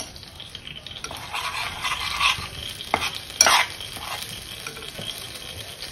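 A steel spoon stirring and scraping besan as it roasts in ghee in a stainless-steel kadhai, with a light sizzle from the frying flour. A couple of sharper scrapes against the pan come about halfway through.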